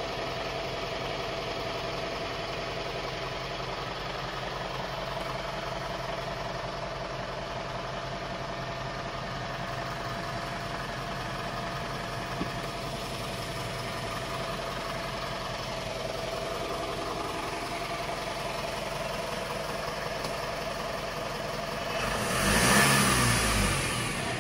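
Mitsubishi Fuso Canter's 4P10 four-cylinder diesel engine idling steadily, heard from inside the cab. Near the end it is revved once, briefly, and settles back to idle.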